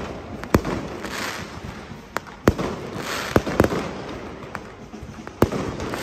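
Aerial fireworks bursting overhead: about six sharp bangs spread through, with hissing and crackle between them.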